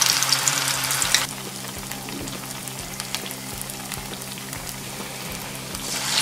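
Bread pockets sizzling as they deep-fry in hot oil in a pan. About a second in, the sizzle drops suddenly to a quieter hiss. Near the end it swells again as another piece goes into the oil.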